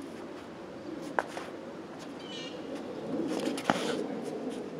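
Two sharp knocks of practice longswords striking each other, about two and a half seconds apart, the second louder. A bird calls briefly between them over a steady low background hum.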